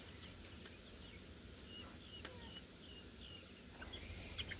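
Faint series of short, high bird peeps, about a dozen, bunched in the middle, with a couple of light clicks.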